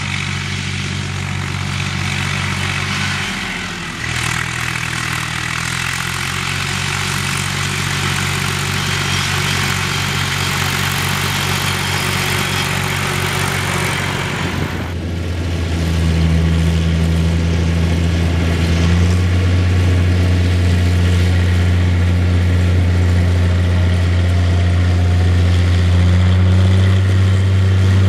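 Farm tractor engine running steadily as it mows grass. About halfway the sound changes suddenly to a louder, lower steady engine note: a Claas combine harvester working in a grain field.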